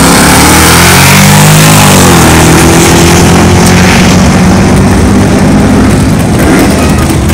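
A 2000 Chevrolet Camaro SS with its 5.7-litre LS1 V8 and a Chevelle drag racing at full throttle: loud engine note rising off the line, dropping in pitch about two seconds in as they shift up, then running steady as the cars pull away.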